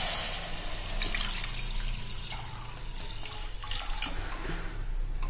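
Thin coconut milk poured from a steel bowl into a pressure cooker pan, a splashing pour whose hiss fades over the first second or so, then thinning to drips and small splashes near the end.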